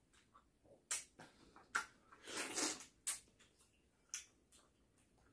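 Wet mouth and hand sounds of eating ripe mango: several short smacking clicks, with a longer sucking sound about two seconds in.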